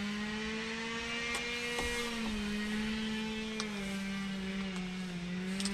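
A steady machine hum whose pitch wanders slowly up and down, with a few faint clicks over it.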